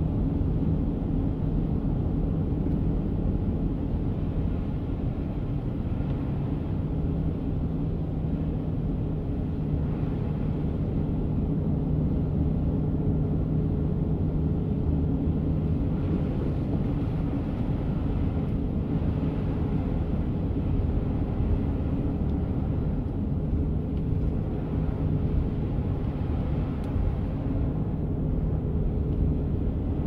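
Steady road and engine noise heard inside a car's cabin while it drives on a snow-covered highway: a low, even drone with a steady hum running through it.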